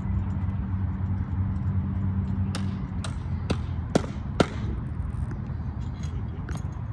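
Half a dozen sharp metal clinks and clanks that ring on briefly, the two loudest close together about four seconds in, from a cutout switch and its mounting hardware being handled on a cross arm. A steady low engine drone runs underneath.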